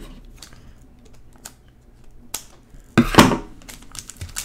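Foil football-card pack handled with a few faint clicks, then torn open in one loud, sharp rip about three seconds in.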